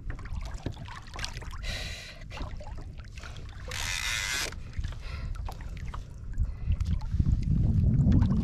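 Water and wind around a fishing kayak at sea: two short splashy hisses about two and four seconds in, over a steady low rumble of wind on the microphone that grows louder near the end.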